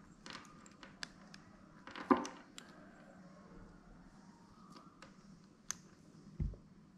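Small plastic clicks and rustles as hands twist open and fit a battery into a Boya clip-on microphone's small battery holder. The loudest click comes about two seconds in, and a dull low knock comes near the end.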